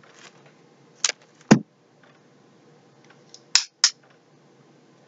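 A few sharp clicks and taps from wire-rimmed eyeglasses being handled and taken off: two about a second in, the second with a dull knock, and two more in quick succession near the end.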